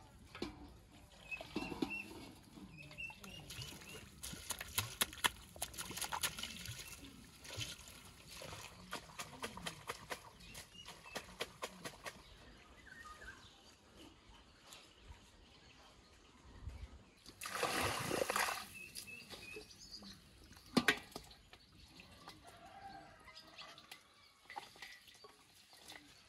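Water splashing and sloshing as greens are swished by hand in a metal basin, with a longer rush of poured water about two-thirds of the way through and a single knock soon after.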